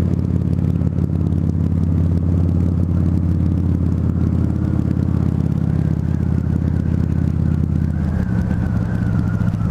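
Harley-Davidson V-Rod Muscle's liquid-cooled Revolution V-twin, fitted with Vance & Hines Competition Series slip-on exhausts, running steadily under way, heard from the rider's helmet. Its note shifts about eight seconds in.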